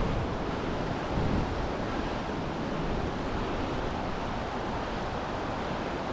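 Steady rush of river water running through rapids below a spillway, with wind buffeting the microphone. Two low bumps stand out, one right at the start and one about a second later.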